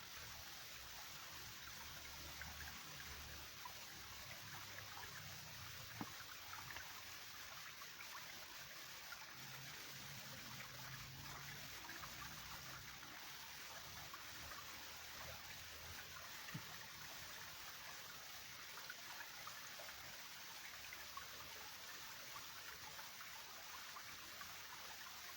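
A small forest stream running, a steady faint trickling rush of water, with patchy low rumble in the first half and two sharp clicks.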